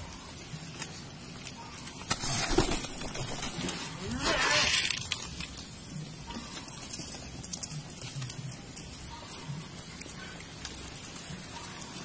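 Pigeons pecking dried corn kernels from a hand: scattered light clicks and the rattle of hard grain, with two louder rustles of corn about two and four seconds in.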